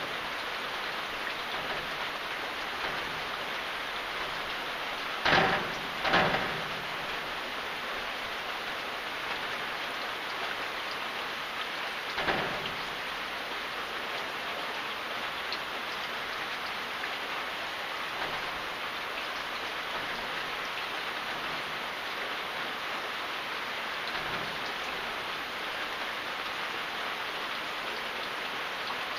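Steady rain falling, an even hiss of drops. Louder sudden hits stand out over it, twice at about five and six seconds in and once more around twelve seconds in.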